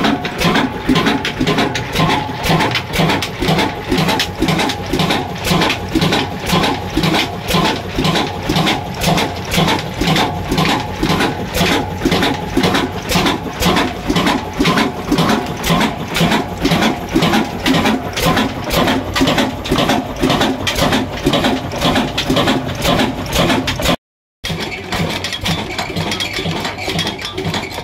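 Old Ruston Hornsby stationary diesel engine running steadily with an even, rapid beat. After a short break near the end, the metal rod-and-lever linkage it drives takes over, clanking rhythmically.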